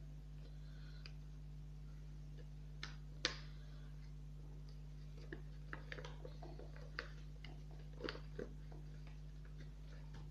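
Sheet of paper being folded and creased by hand: scattered soft crinkles and sharp little snaps, the sharpest about three seconds in and a run of them a few seconds later, over a steady low hum.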